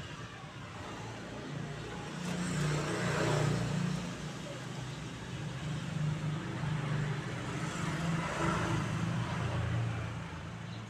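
A motor vehicle's engine running as a steady low hum, growing louder twice, around three seconds in and again near eight seconds.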